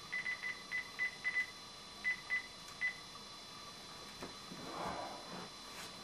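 Cordless phone handset's keypad beeping as a number is dialled: about a dozen short, high single-pitch beeps in quick, irregular succession during the first three seconds.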